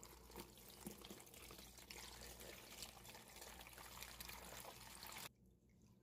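Dongchimi brine poured from a pot into a plastic container over whole salted radishes, a faint steady splashing pour that stops abruptly about five seconds in.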